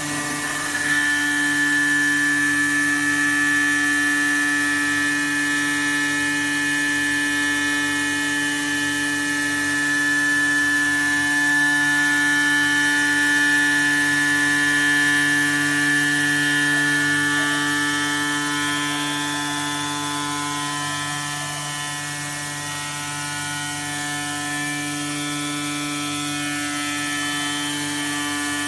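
AOKE DCZ76 digital flatbed cutting machine running as it cuts 20 mm EVA foam: a steady mechanical whine and hum made of several fixed tones over a hiss, swelling slightly in the middle and easing a little later.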